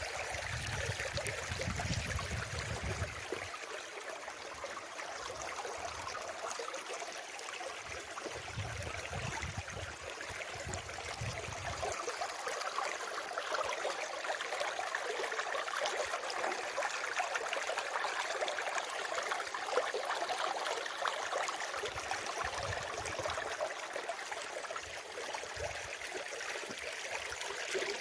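Running water, a steady rushing and trickling, with a low rumble in the first few seconds and again from about 8 to 12 seconds in.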